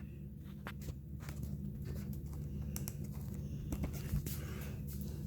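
Light scattered clicks and taps of a toothpaste tube and bowl being handled, over a steady low hum.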